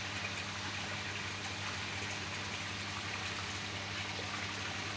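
Koi pond water rushing and bubbling steadily, with a low, even hum beneath it.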